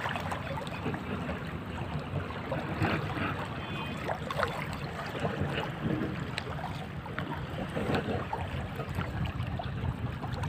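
Steady outdoor noise of water and wind at the shore, with a low rumble of wind on the microphone and scattered small clicks and knocks.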